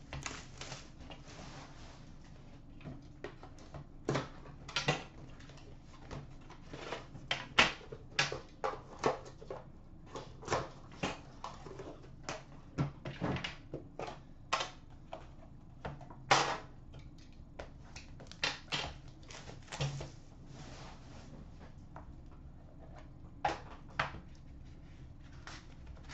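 Plastic shrink-wrap crinkling and tearing as a sealed hockey card box is unwrapped, with irregular clicks, taps and knocks as the box is handled and opened.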